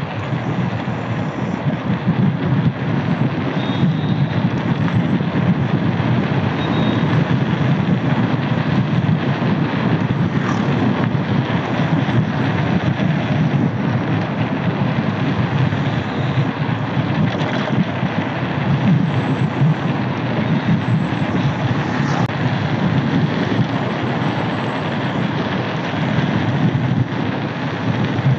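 Steady wind rush buffeting an action camera's microphone on a mountain bike speeding downhill on a paved road, with tyre noise on the asphalt under it.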